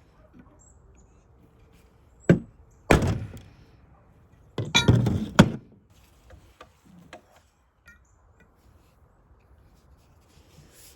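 Steel parts of an angle-iron jig knocking and clinking as they are handled on a workbench: a sharp knock about two seconds in, a longer rattling clank just after, and a cluster of knocks about a second later.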